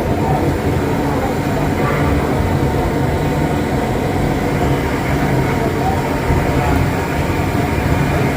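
Busy roadside street ambience: a steady low rumble of traffic and general street noise.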